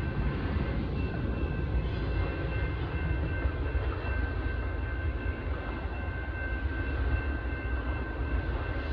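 Norfolk Southern intermodal freight train rolling along the rails: a steady low rumble with thin, steady high tones held above it.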